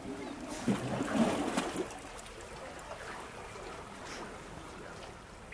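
Small sea waves washing and splashing against shoreline rocks, with a louder cluster of splashes about a second in, then a quieter trickling wash as the water drains back.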